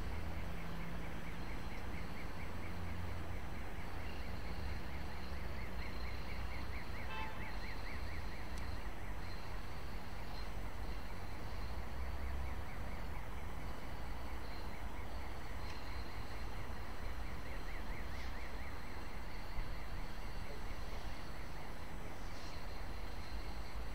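Railway station background: a steady low rumble, with a bird's rapid high chirping coming and going.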